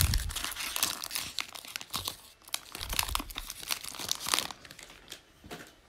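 Foil wrapper of a 2020 Mosaic NFL trading card pack crinkling as it is torn open and peeled off the cards. The crackling is dense at first and thins to a few scattered clicks near the end as the card stack comes free.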